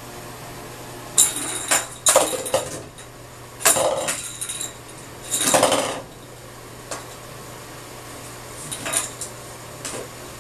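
A plastic cup and small toy clattering and scraping on a bathtub floor as a cat bats them around, in irregular bursts: sharp knocks about a second in, longer rattling scrapes around four and six seconds, and a few lighter taps near the end.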